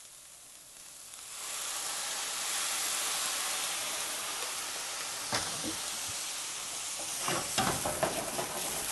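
Brandy sizzling and hissing in a hot skillet of sautéed mushrooms as it is flambéed. The hiss starts about a second in and then holds steady. There is a knock around the middle and a few clanks near the end as the pan is shaken on the gas burner grate.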